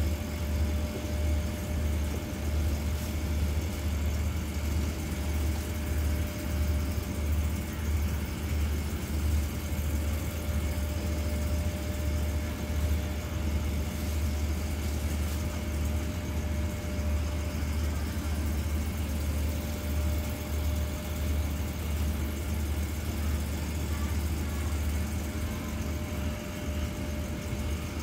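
Diesel engine of a standing passenger train idling steadily: a deep, even throb with a faint steady whine above it.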